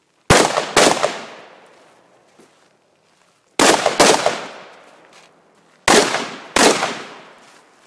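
Rifle shots fired in three quick pairs, about half a second apart within each pair and two to three seconds between pairs, each shot trailing off in a long echo.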